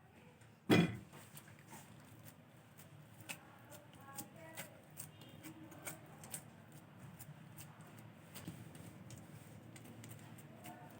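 Kitchen handling sounds: one solid knock about a second in, then scattered light clicks and taps of utensils and food being worked.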